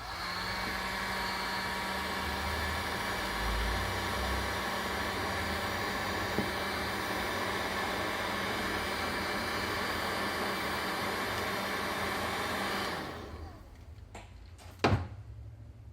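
Hot-air blower running steadily with a low hum, shrinking heat-shrink tubing over a crimped coaxial connector. It is switched off about thirteen seconds in and winds down, followed by a single knock.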